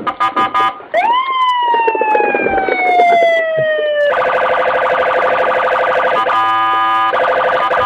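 Electronic siren sound. It opens with a few short beeps, then a tone that swoops up and slides slowly down for about three seconds, then a steady, rapidly warbling alarm tone.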